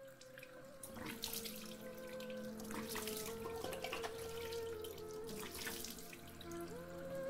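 Running water splashing, getting gradually louder, under soft sustained music.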